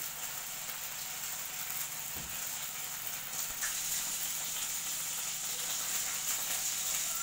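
Chicken tikka skewer frying in oil in a pan, a steady sizzle with faint crackles.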